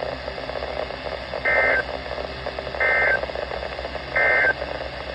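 Three short bursts of EAS (SAME) digital data tones over NOAA Weather Radio, each about a third of a second long and about a second apart. This is the end-of-message signal that closes an alert, heard over steady radio hiss.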